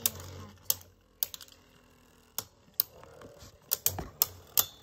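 Two Beyblade spinning tops battling in a plastic stadium, clacking against each other and the wall in sharp, scattered clicks. A quick run of clicks comes near the end.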